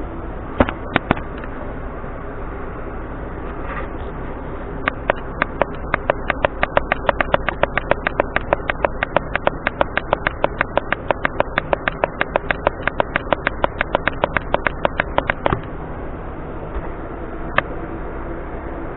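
A rapid, even run of sharp mechanical clicks, about six a second, lasting some ten seconds, over a steady background hum; a few single clicks come before and after it.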